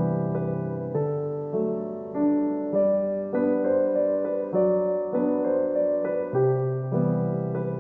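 Background piano music: a gentle keyboard melody with chords changing about every half second.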